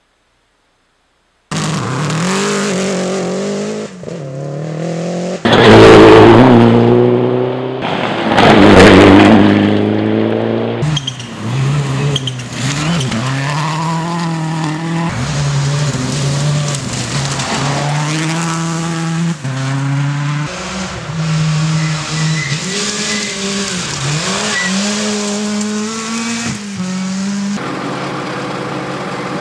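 Rally car engines at full speed on a forest stage, revving up and dropping through gear changes again and again, starting about a second and a half in. Two loud passes stand out about six and nine seconds in.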